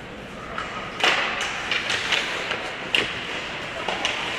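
Ice hockey play: several sharp clacks of sticks and puck over the steady scrape of skates on the ice.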